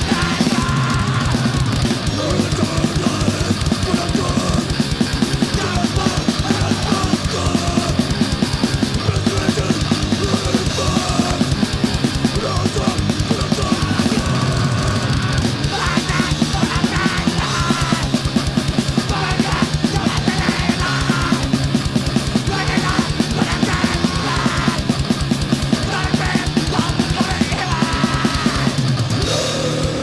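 Fast, loud crust/grindcore music from a record: rapid drumming under heavily distorted guitars, with no let-up.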